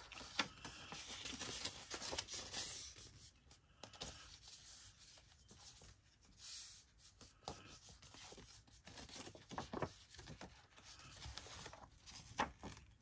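Sheets of paper being handled and folded, rustling and rubbing, with a few sharp taps or clicks spread through, loudest in the first few seconds.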